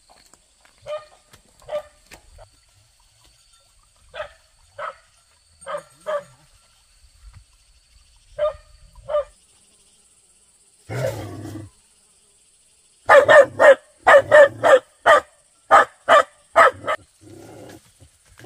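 Dog barking: spaced single and paired barks at first, then a rapid volley of loud barks, two or three a second, over the last few seconds. A short rough noise, like a growl, comes about 11 seconds in.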